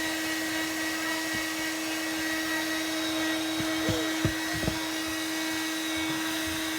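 Hand-held hair dryer running steadily, a constant motor hum over the rush of blown air. A few short sounds stand out about four seconds in.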